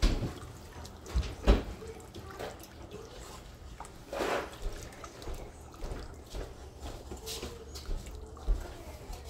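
Silicone whisk stirring a thin beef-broth sauce in a pot, with wet sloshing and irregular soft taps of the whisk against the pot. A low steady hum runs underneath.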